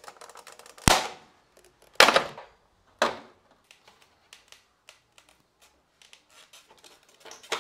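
Plastic tabs of a Kymco People scooter's handlebar fairing snapping apart as the speedometer housing is pried off the headlight cover: three sharp snaps about a second apart, then faint clicks and light rattles of the plastic panels.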